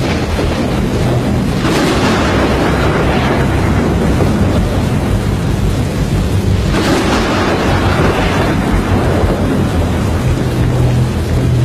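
Storm noise: a steady roar of wind and rain, with two loud rushing surges about two and seven seconds in, each fading over a couple of seconds.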